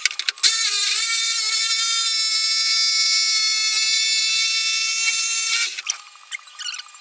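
Electric drill motor spinning up and running at a steady high whine for about five seconds, then stopping, as a hole is drilled down through a piece of wood.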